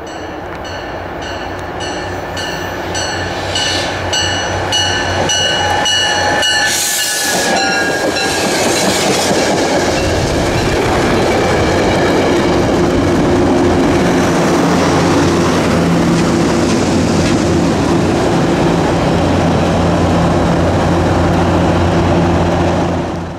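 Metro-North push-pull train passing close by. The Shoreliner coaches' wheels click over rail joints at an even beat, with high ringing tones in the first several seconds. Then the diesel locomotive pushing at the rear comes by with a loud, steady engine drone that builds through the second half.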